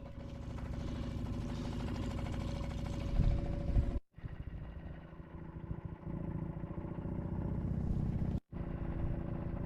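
Small boat outboard motor running steadily under way. The sound cuts out briefly twice.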